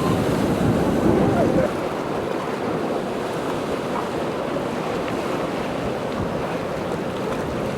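Ocean waves and surf rushing, with wind blowing across the microphone. The noise is steady, a little louder in the first second and a half.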